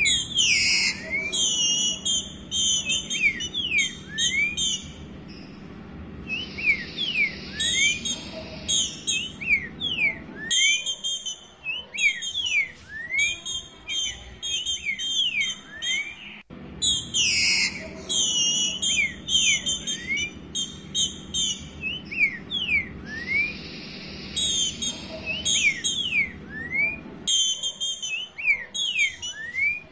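Female green-winged saltator (Saltator similis) calling in a rapid series of short, sharp whistled chirps, some sweeping up and some down, several a second. These are the calls of a female soliciting mating.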